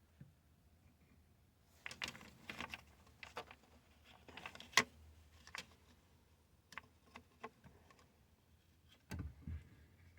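Faint clicks and light rattles of steering-column parts around a Ford turn signal module being handled and jiggled, with one sharp click a little under five seconds in and a low thump near the end.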